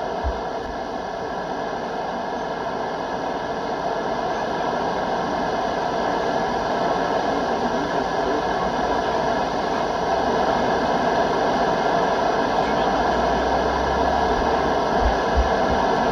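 Steady, loud hiss of radio static from a weather-radio broadcast with no voice on it, growing slightly louder, with a few low bumps near the end.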